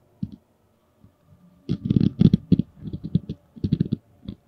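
Paper sheets handled close to a lectern microphone: an irregular run of a dozen or so short, soft knocks and rustles, starting about a second and a half in.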